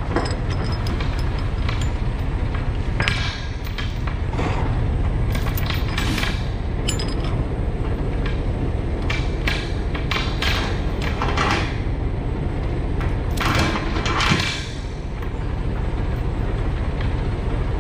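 Steel transport chain clanking and rattling as it is pulled and hooked into a ratchet chain binder. The clinks of links and hooks come irregularly, over a steady low rumble.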